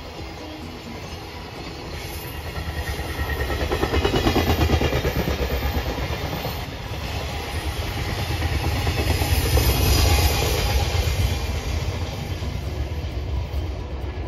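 A train passing close by, its wheels clattering rhythmically over the rail joints, loudest about four seconds in and again around ten seconds in.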